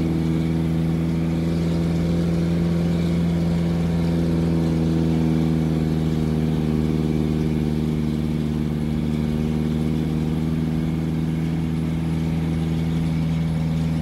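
Mitsubishi Canter 4x4 dump truck's diesel engine running steadily at an even pitch while the truck drives, heard from inside the cab.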